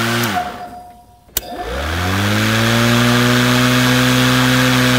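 Neuton cordless electric lawn mower's DC motor and blade running with no load: it winds down in the first moment, then after a click it spins up again with a rising whine and settles into a steady hum with a rushing air sound from the blade.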